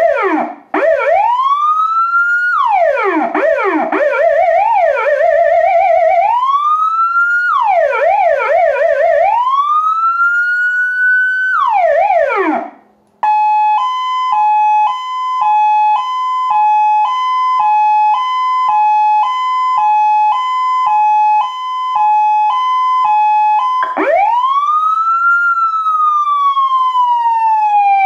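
Elfir Zura PS100r electronic police siren run through its tones: rising wail sweeps with fast up-and-down yelping sweeps, then after a brief stop a steady two-tone hi-lo alternating about once a second, and near the end a wail that rises and slowly falls.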